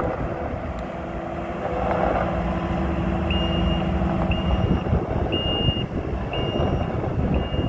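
Kubota SSV75 skid steer loader's diesel engine running, with its pitch lifting briefly a couple of seconds in. About a third of the way through, its backup alarm starts beeping, one high steady beep about every second, as the loader reverses.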